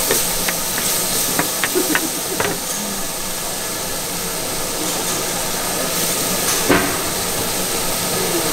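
Food sizzling on a hot griddle, a steady hiss, with a few sharp clicks of a metal spatula on the plate, the loudest near the end.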